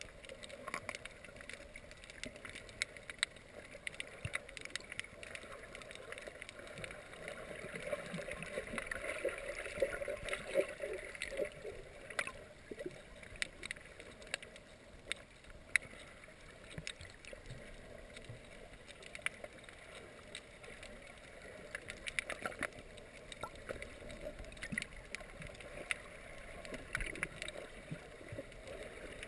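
Muffled underwater water noise picked up by a submerged GoPro in its housing: a steady gurgling rush with many scattered sharp clicks, a little louder around eight to twelve seconds in.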